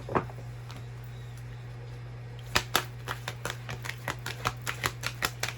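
Tarot cards being shuffled by hand: a quick run of crisp card clicks and snaps begins about two and a half seconds in. A steady low hum sits under it throughout.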